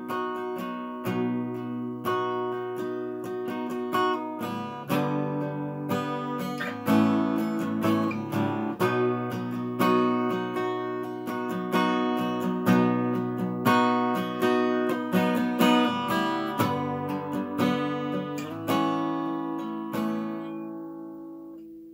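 Solo steel-string acoustic guitar playing a rhythmic picked chord pattern, the song's instrumental intro. Near the end the last chord is left to ring and fade away.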